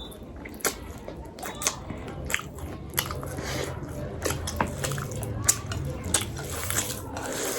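Close-miked mukbang eating: a person chewing and biting a meal of rice and chicken, with irregular wet smacks and sharp clicks every half second or so.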